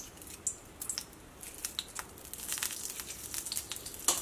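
Hot oil crackling and popping in a small steel kadai as pieces of green chilli are cut into it with a knife. The crackles start sparse and grow denser about halfway through.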